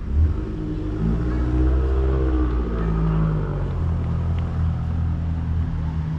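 A motor vehicle's engine running close by, starting just after the opening; its pitch rises and falls around two seconds in, then holds steady.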